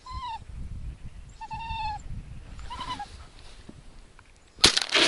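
A spaniel whining three times, each whine a short pitched rise and fall. About four and a half seconds in, a single shotgun shot, the loudest sound, with a trailing echo.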